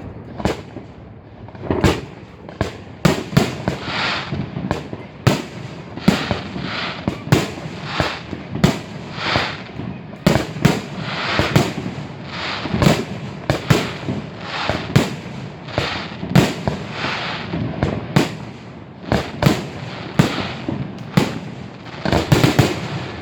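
Fireworks display: a rapid string of bangs from bursting shells, about one or two a second, some in quick clusters, with a rushing noise between them, as picked up by a phone microphone.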